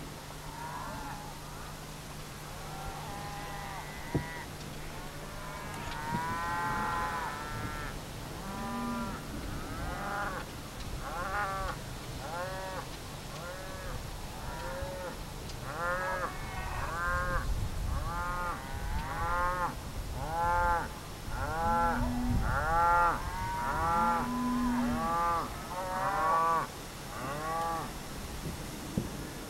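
A cattle herd of cows and calves mooing and bawling. Short calls come one after another, about one or two a second, after the first several seconds, with a few deeper, longer moos among them; this is cattle calling for feeding time. A low steady hum sounds for the first few seconds, then stops.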